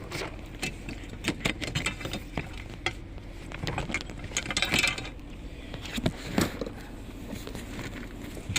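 Irregular clicks, knocks and rattles of objects being handled, with a short scraping rustle about four and a half seconds in.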